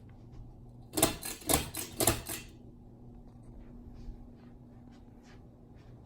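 Hampton Bay Hawkins ceiling fan running with a steady low hum. About a second in comes a quick run of loud rattling clicks, three main ones about half a second apart, over roughly a second and a half.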